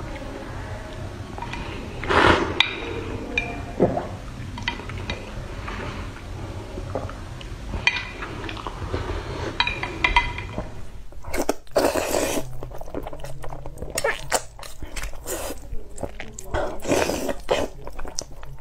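Close-miked eating sounds: noodles being slurped and chewed, with light clinks of chopsticks against the bowl in the first part. After about 11 s the slurping and chewing become louder and denser.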